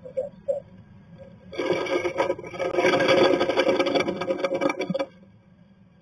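A tree swallow shuffling and scraping in its pine-needle nest inside a wooden nest box: a loud, rapid rattling scrape starting about a second and a half in and stopping suddenly about three and a half seconds later.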